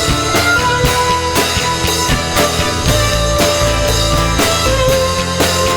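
Instrumental pop music with a steady drum beat, held synth or keyboard tones and guitar.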